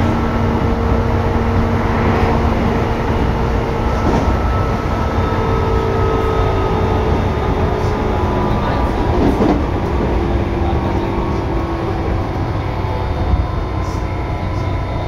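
Tobu 9000 series electric commuter train running: a steady rumble of wheels on the track, with motor tones that slowly drift lower in pitch and a few faint clicks.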